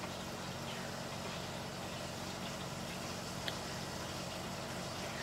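Steady low hum of background room tone, with one faint click about three and a half seconds in.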